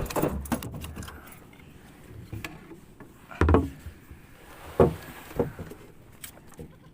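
A few sharp knocks and thumps with small clicks in between, the loudest two about three and a half and five seconds in.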